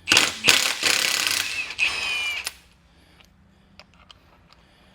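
Power impact wrench running in two loud spells over about two and a half seconds, with a wavering whine near the end: lug nuts being spun off a wheel. Then it stops, leaving only a few faint clicks.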